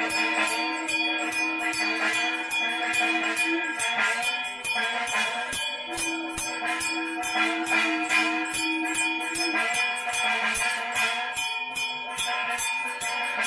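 Hand bells rung rapidly and without pause for the aarti, with many ringing tones overlapping. A held low tone sounds alongside in three long stretches of a few seconds each.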